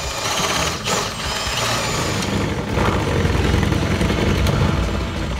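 Power drill boring a hole through a wooden wall panel, running steadily under load.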